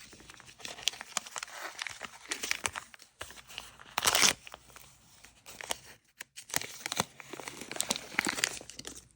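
Plastic packaging crinkling and tearing as a small MiniBrands toy package is opened by hand, with a louder short rip about four seconds in.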